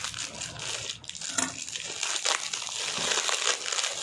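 Plastic packaging crinkling and rustling as a bubble-wrap mailer and the clear plastic bag inside are cut open with scissors and pulled apart, in irregular crackles.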